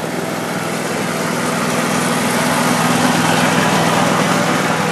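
Ride-on lawn mower engine running steadily, slowly growing louder.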